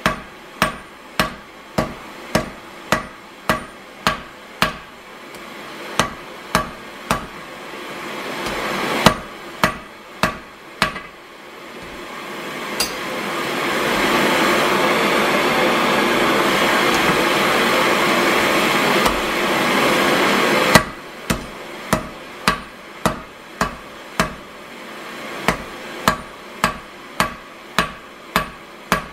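Blacksmith's hand hammer striking red-hot iron on an anvil in a steady rhythm, a little under two blows a second. In the middle the blows stop, and a steady rushing noise swells up, holds for about seven seconds and cuts off suddenly, before the hammering starts again.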